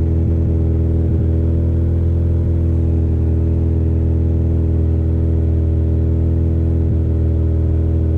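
Lotus Esprit engine idling steadily as it warms up after a cold start, heard from inside the cabin. It holds a constant low, even note throughout, with no revving.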